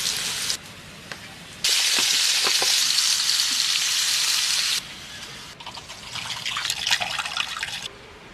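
Cooking sounds in short cuts: a loud, steady hiss for about three seconds, then a few seconds of irregular crackling sizzle of food frying in hot oil in a pot.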